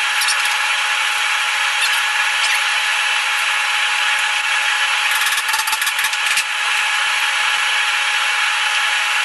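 A steady, loud hiss of a running machine, with a faint steady tone in it. About five seconds in, a quick cluster of sharp clicks lasts about a second as the glue-tab dent lifter is worked on the door panel.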